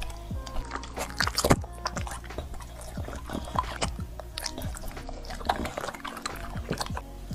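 A dog chewing and smacking on juicy dragon fruit bitten off a fork: an irregular run of wet clicks and smacks, busiest about one to two seconds in.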